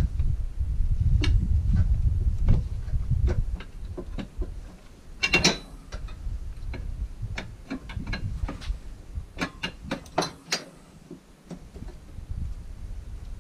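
Irregular clicks and clinks of hand tools on metal as bolts and parts are worked in a car's engine bay, with a louder clatter about five seconds in. A low rumble runs under the first few seconds.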